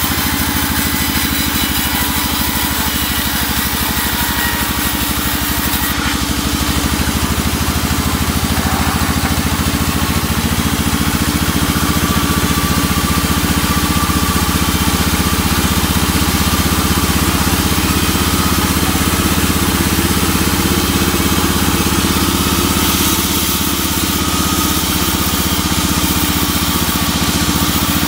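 Band saw running steadily while a teak beam is fed through the blade, its drive giving a constant mechanical drone.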